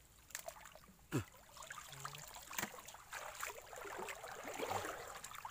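Pond water sloshing and trickling as people wade in it, with a few sharp clicks and knocks.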